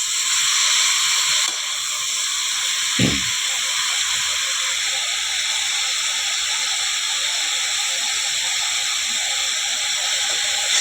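A potato and soybean vegetable dish frying in hot oil in a pan, giving a steady sizzle throughout, with a single low thump about three seconds in.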